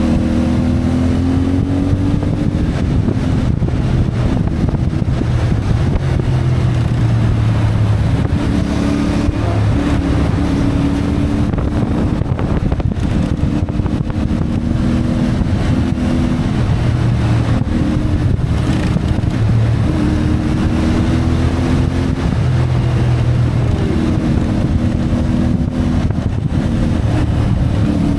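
CFMoto 450MT's parallel-twin engine under way, its pitch rising and falling repeatedly with throttle and gear changes, over a steady rush of wind noise.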